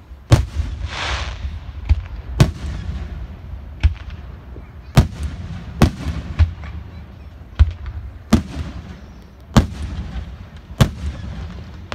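Aerial fireworks shells bursting: about ten sharp bangs at uneven intervals, roughly a second apart, over a steady low rumble, with a short hiss about a second in.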